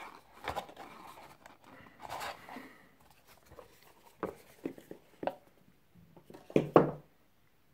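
Hands handling a cardboard phone box and its packaged accessories: scattered rustling, light scrapes and small taps, with a sharper double knock near the end.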